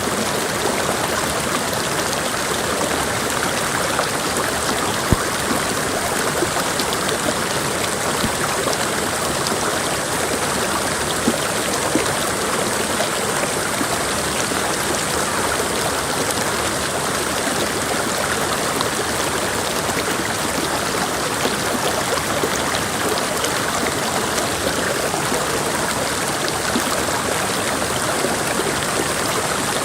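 Mountain creek water rushing and splashing over rocks, a steady, even sound.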